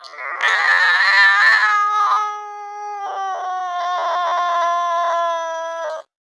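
Angry cat yowling: one long call that opens harsh and raspy, then turns into a drawn-out wail, falling slowly in pitch with a few stuttering breaks, and cuts off abruptly about six seconds in.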